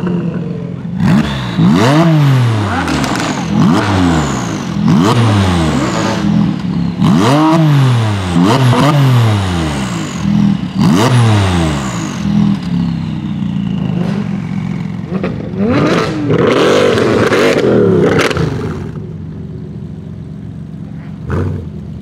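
Tuned Porsche 997 Turbo's twin-turbo flat-six free-revved at a standstill: a string of about nine sharp throttle blips, roughly one a second, each rising and dropping straight back. Later comes a longer, rougher rev, after which the engine settles to a steady idle with one small blip near the end.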